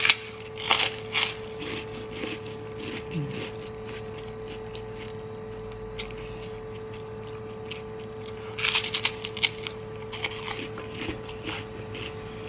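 Crisp white kerupuk cracker being bitten and chewed with the mouth close to the microphone: a run of crackly crunches near the start and another about nine seconds in. A steady hum sits underneath.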